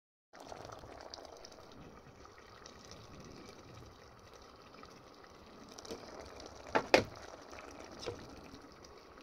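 A smoked-fish sauce simmering in a pot gives a faint, steady bubbling. About two-thirds through, a utensil knocks against the pot a few times, the loudest a quick double knock.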